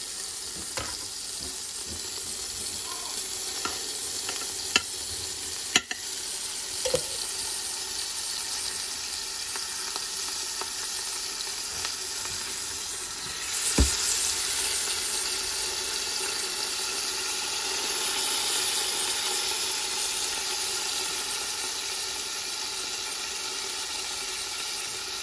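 Whole duck browning in butter in an Instant Pot's stainless steel inner pot on sauté mode, sizzling steadily. A few light clicks come in the first seconds, and a sharper knock about fourteen seconds in is followed by a briefly louder sizzle.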